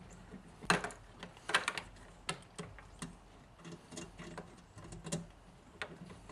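Irregular small clicks and taps of a Torx T20 driver and small metal parts being handled while unscrewing the screws that hold the retaining ring on a headlight bulb.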